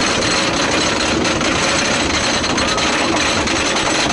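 Great Coasters International wooden roller coaster train climbing its traditional chain lift hill, the lift chain and ratchets making a fast, steady clatter as the train nears the crest.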